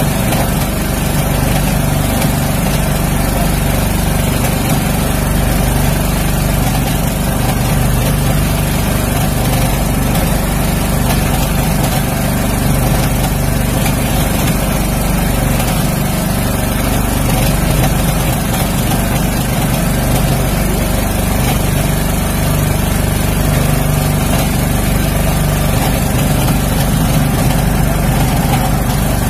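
Small engine aboard an outrigger fishing boat running steadily at an even pitch, a loud, unbroken drone with no change in speed.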